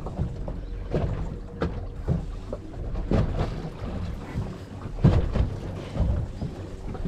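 Wind buffeting the microphone over the wash of open-sea water against a boat's hull, with irregular knocks and thumps, the strongest about five seconds in, and a faint steady hum underneath.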